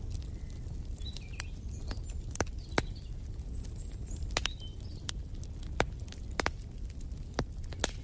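Wood fire in a fireplace crackling, with irregular sharp pops over a steady low rumble of the flames. Faint short bird chirps now and then.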